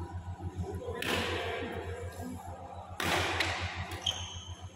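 Badminton rally: racket strokes on the shuttlecock, about a second and three seconds in, each with a rushing tail. A sharp crack of a jumping smash comes near the end, over a steady low electrical hum.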